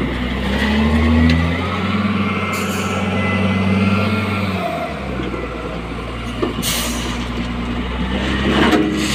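LiuGong wheel loader's diesel engine revving up and working hard as it handles a bucket of crushed stone beside a tipper, then settling to a lower speed about five seconds in. Two short hisses come later, one about seven seconds in and one near the end.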